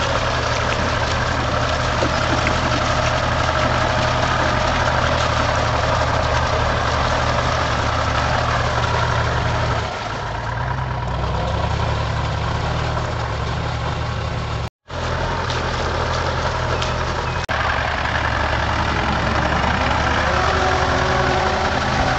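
Mahindra tractor's diesel engine running steadily as the tractor works through a flooded paddy field on cage wheels, pulling a puddler. The engine note dips in pitch and level about ten seconds in, then picks up again.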